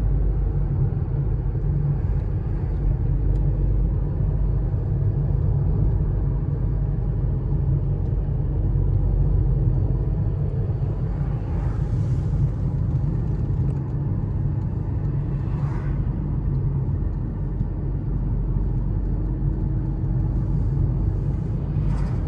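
A car driving, heard from inside the cabin as a steady low road-and-engine rumble. Brief swells of hiss come about twelve and sixteen seconds in.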